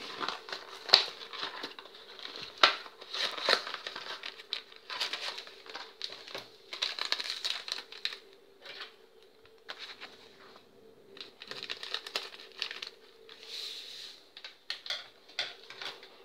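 A cardboard gelatin box torn open and its inner paper sachet handled, crinkled and ripped, in irregular bursts with sharp clicks.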